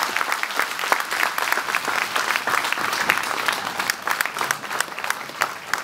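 A room full of people applauding. The clapping is dense at first and thins to scattered claps near the end.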